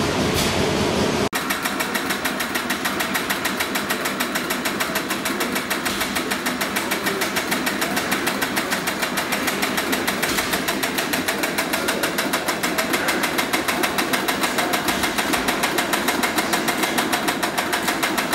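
A large multi-cylinder diesel engine running for about a second, then, after a cut, a small vintage engine running with a steady, rapid, even clattering beat.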